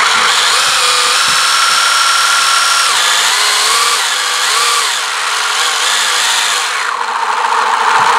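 Electric RC car motor spinning the 3D-printed plastic gears, driveshaft and differentials of a truggy chassis on a bench test: a loud mechanical whirring grind. Its pitch holds steady at first, then wavers up and down a few seconds in as the throttle changes, and it stops abruptly right at the end.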